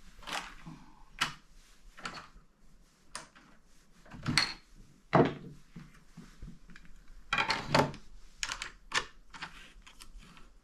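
Wool combs and fleece being handled on a workbench, with irregular clicks, knocks and rustling. The heaviest knocks come about four to five seconds in and again near eight seconds.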